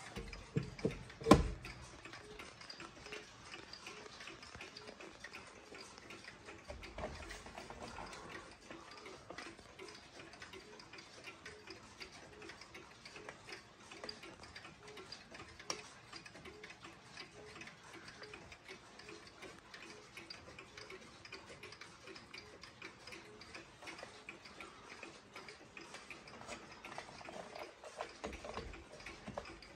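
Hamilton Headmaster wall clock's pendulum movement ticking steadily, with a single sharp knock about a second in.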